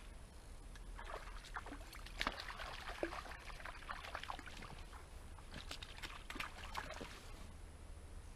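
Faint splashing and trickling of water at the river's edge as a hooked pike is brought in and handled in the shallows, in scattered splashes from about one second in until near the end.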